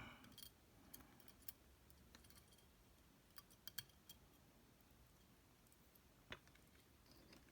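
Near silence with a few faint, scattered small clicks of metal lock parts being handled while a lock cylinder's pins are worked out.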